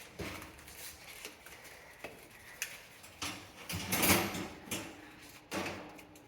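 Scattered light clicks and knocks from objects being handled, with a louder scraping, rustling stretch about four seconds in.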